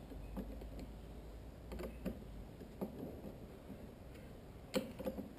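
Irregular light clicks and taps of a screwdriver and small metal parts as the cap is fitted back onto a pocketbike carburetor and screwed down, with one sharper click a little before the end.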